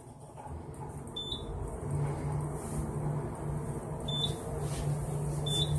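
ThyssenKrupp elevator car travelling down: a steady low hum with ride rumble, and three short high beeps, one about a second in, one about four seconds in and one near the end, as floors go by.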